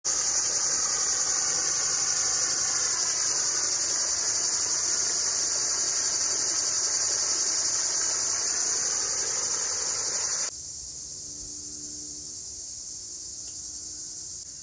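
Steady, high-pitched chorus of insects over a rushing, splashing water noise from a fish-pond aerator. Both drop suddenly about ten seconds in, leaving a quieter insect chorus.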